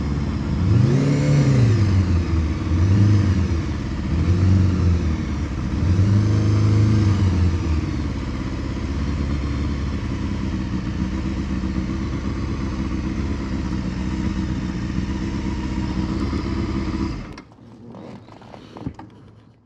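Honda Hornet 250's inline-four engine, its pitch rising and falling in four short rev swells, then running at a steady speed. It stops abruptly about 17 seconds in, leaving a few faint clicks.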